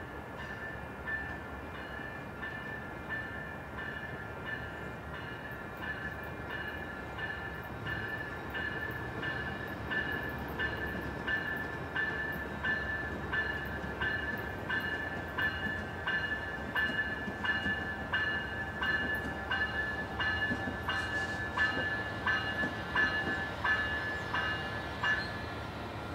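A railroad bell ringing at an even beat, about three strikes every two seconds, growing louder and stopping shortly before the end, over the low rumble of an approaching Amtrak train.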